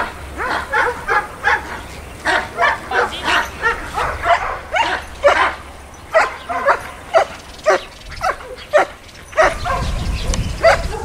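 German Shepherd Dog barking over and over, about two sharp barks a second, during protection work.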